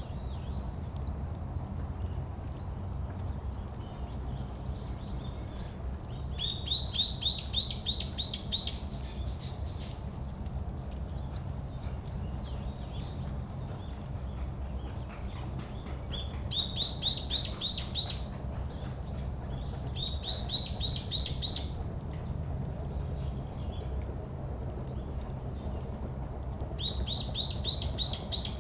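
Small songbird calling in four bursts, each a quick run of rising notes, over a steady high-pitched thin tone.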